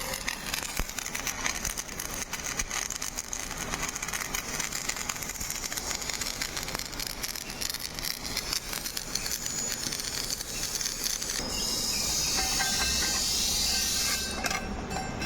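Electric arc welding on a steel conveyor drum: the arc crackles and sizzles steadily. Near the end a smoother, brighter hiss takes over for about three seconds before the crackle returns.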